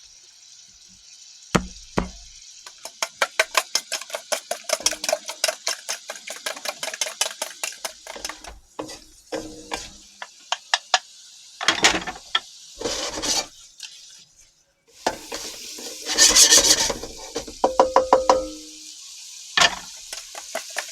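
Fork beating duck eggs in a bowl, a rapid, even clicking of about five strokes a second, then a few knocks. Later comes a loud, brief hissing sizzle from the hot wok, followed by more quick clicks.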